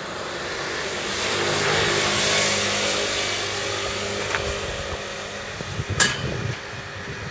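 A passing vehicle: a steady low hum under a rushing noise that swells to a peak about two seconds in and then fades. A sharp click about six seconds in, among a few low knocks.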